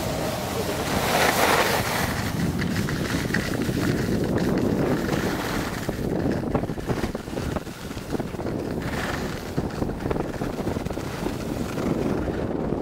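Wind rushing over the microphone of a camera carried by a moving skier, mixed with the hiss and scrape of skis on packed snow. It swells loudest about a second in.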